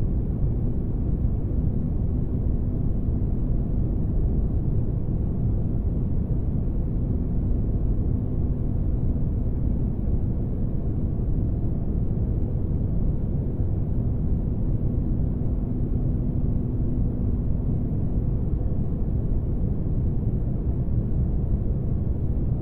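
Spaceship-interior ambience noise used as white noise: a steady, deep noise weighted to the low end, with a faint hum that comes and goes.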